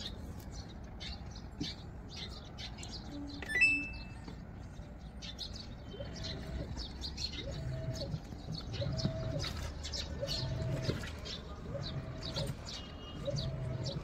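Samsung WA70BG4545BD top-load washing machine washing: from about six seconds in, its digital inverter motor whines up, holds and winds down in repeated strokes roughly every one and a half seconds as the pulsator churns the clothes in foamy water. Birds chirp in the background, and a short beep sounds about three and a half seconds in.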